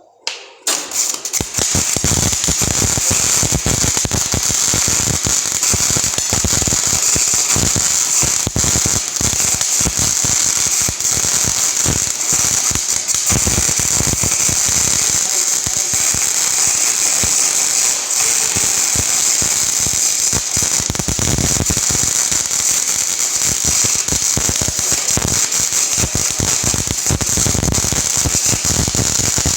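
Snap-on FM140A MIG welder's arc striking about half a second in, then crackling steadily and continuously as a bead is laid.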